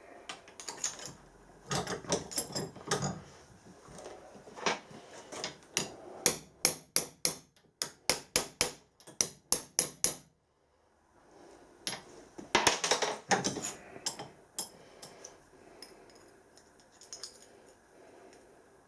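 Hammer tapping on a small metal oil box lid to straighten out where it was squashed. First come scattered knocks, then a quick even run of about three sharp taps a second. After a short break there is a close cluster of taps, and a few lighter ones follow.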